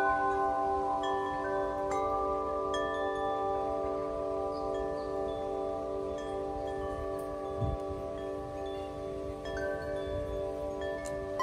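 Large metal tube wind chimes ringing in the breeze. Several long, overlapping tones sustain while fresh strikes come in every second or so.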